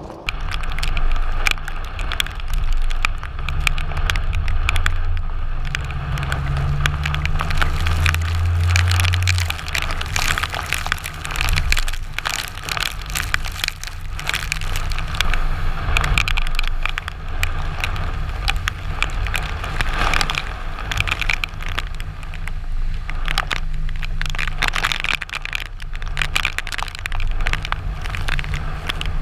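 Strong cyclone wind buffeting the microphone: a heavy, uneven low rumble with dense crackling noise over it.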